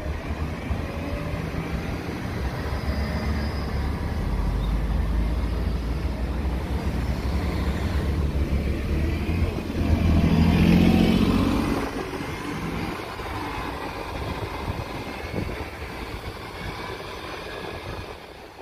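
Chapel Hill Transit city bus drawing near with its engine running, growing louder until it passes close by about ten seconds in, then fading as it drives off down the street. A car passes near the start.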